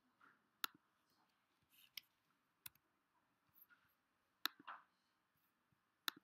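A handful of faint, separate clicks from computer keys and a click: keystrokes finishing a typed spreadsheet formula, then a sharper click about four and a half seconds in, and another near the end.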